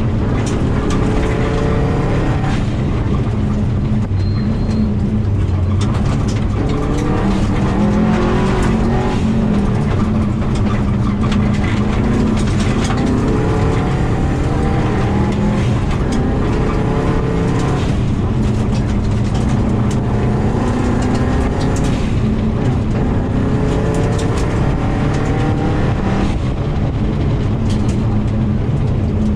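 Turbocharged flat-four engine of a 2000 Subaru WRX at full rally stage pace on gravel, heard from inside the cabin, its pitch climbing and then dropping back at each gear change, again and again. Scattered clicks and knocks of gravel striking the car run underneath.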